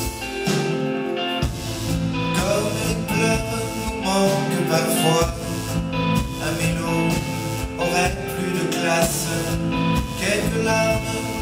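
Live band playing a slow pop song, with electric bass audible in the mix and a male voice singing over it in places.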